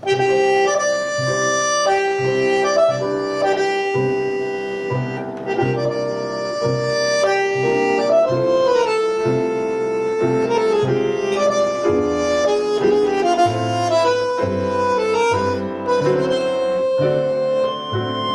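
Tango quartet playing an instrumental introduction, a bandoneon carrying sustained melody notes over piano, violin and a walking double bass line.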